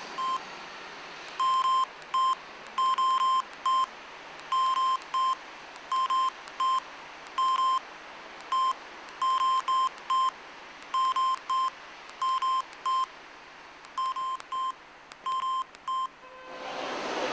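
Mobile phone keypad beeping as a text message is typed. Short beeps of a single tone come in irregular runs of one to several key presses. Near the end the beeping stops and a louder outdoor background noise rises.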